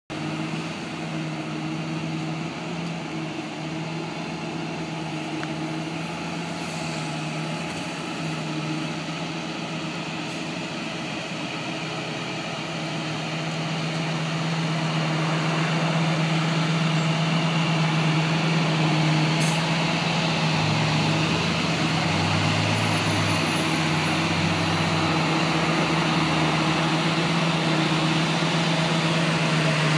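An engine idling steadily, a low even hum that grows louder about halfway through.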